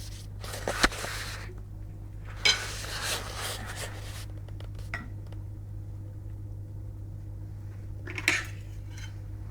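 Spoons clinking and scraping against dishes while eating ice cream, with three sharp knocks among them, over a steady low hum.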